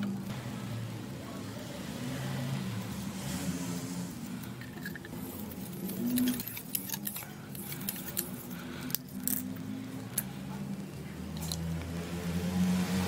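Small clicks and light rattles of a brass ball valve and plastic PVC pipe fittings being handled, with thread-seal tape wrapped onto a threaded adapter, over quiet background music. The sharpest clicks come in the second half.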